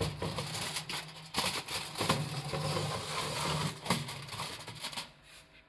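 A foil-covered metal baking tray sliding into an oven along the rack rails: scraping and rattling of metal on metal with many sharp clicks and foil crinkling over a low hum, dying away about five seconds in.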